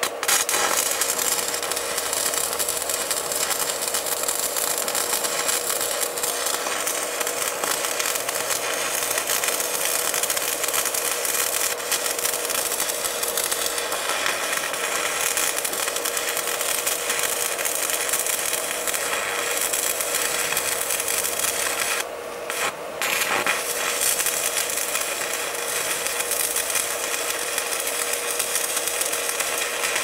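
Welding machine pushing a heavy overload current, about 170 amps, through a wire connection; it runs with a steady raspy buzz and a constant whine. It cuts out briefly about 22 seconds in, then carries on.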